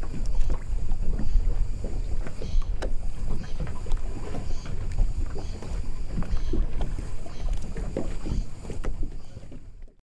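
Harbour water lapping and slapping against moored small boats and the concrete quay, with many small irregular knocks over a low wind rumble. The sound fades out near the end.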